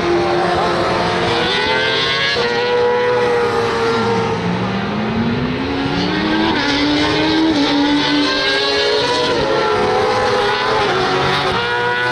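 Several racing sidecar outfits' engines at high revs, overlapping as they pass. One drops sharply in pitch about four seconds in, as if braking off the throttle, then climbs back up in steps through the gears.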